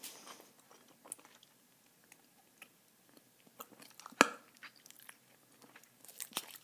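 Close-miked chewing of three pieces of Bazooka bubble gum at once: scattered wet clicks and smacks, with one loud, sharp snap about four seconds in.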